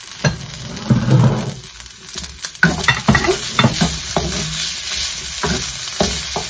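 Chicken strips sizzling in a hot wok while a wooden spoon stirs and scrapes them. From about two and a half seconds in, the spoon knocks against the pan in a quick, uneven run of clicks over the steady sizzle.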